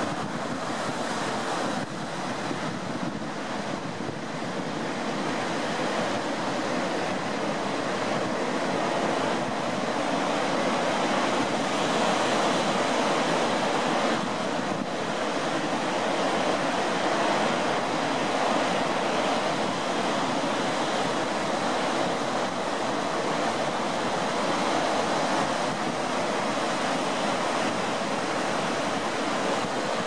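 Ocean surf washing steadily onto a sandy beach, a continuous rushing noise, with some wind on the microphone.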